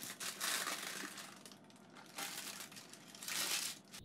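Baking paper crinkling and rustling in several bursts as a parchment-lined baking pan is handled.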